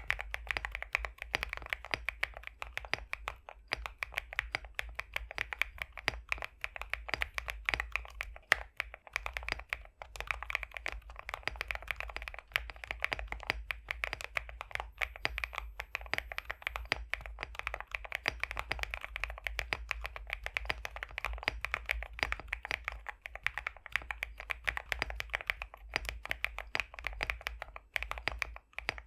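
Continuous fast typing on an Epomaker x Createkeebs High65 v2 custom mechanical keyboard fitted with pre-lubed BSUN X linear switches: a dense run of thocky, creamy keystrokes, broken by a couple of short pauses.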